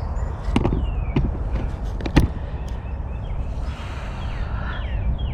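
A few sharp knocks about half a second, one second and two seconds in, over a steady low rumble, with faint short high chirps.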